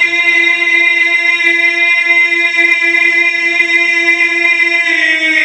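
Music: a single instrumental note held steady without a break, its pitch shifting slightly near the end.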